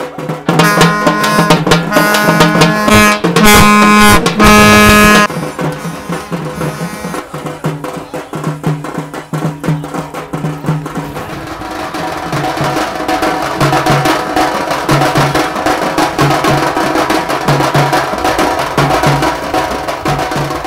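Festival percussion music: fast, dense drumming, with loud held notes from a wind instrument over it for the first five seconds or so.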